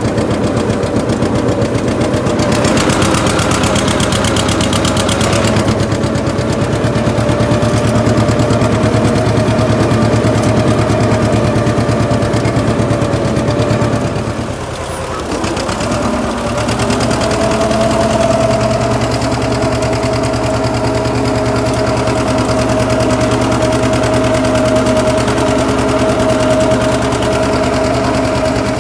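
John Deere 630's two-cylinder engine pulling a plow under load, with a rapid, steady popping exhaust beat. It goes briefly quieter about halfway through, then picks up again.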